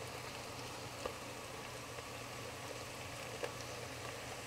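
Faint, steady stovetop cooking noise: an even hiss over a low hum from pans on a gas range, with a couple of small ticks.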